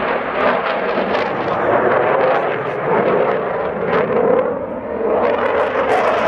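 Jet aircraft flying past: a loud, continuous rushing engine noise whose pitch sinks slightly mid-way and rises again near the end.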